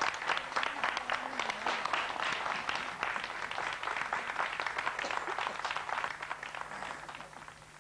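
Studio audience applauding, the clapping dying away near the end.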